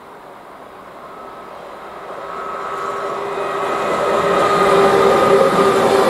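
Electric locomotive hauling a passenger train, approaching and passing close by. It grows steadily louder over the first four seconds, with a steady whine over the rumble of the wheels.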